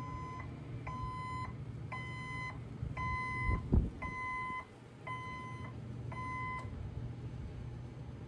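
Backup alarm of a Hyundai 18BT-9 electric forklift beeping steadily about once a second as it reverses, then stopping about two-thirds of the way through. A low thump about three and a half seconds in is the loudest sound.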